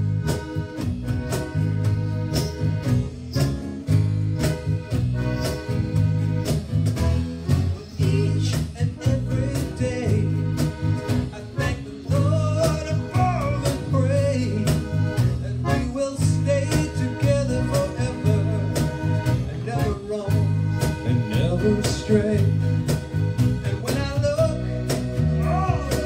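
Live band playing an easy rhythm-and-blues song: strummed acoustic guitar, electric bass and accordion over a steady beat. Singing comes in about twelve seconds in.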